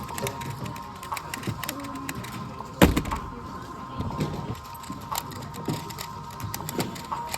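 Busy room ambience: scattered light clicks and faint voices, with one loud thump about three seconds in.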